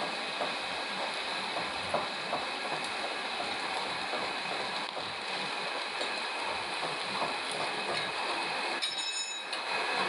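Metal lathe running in a machine shop: a steady mechanical noise with a few steady high tones and light irregular clicks, and a brief high-pitched ringing about nine seconds in.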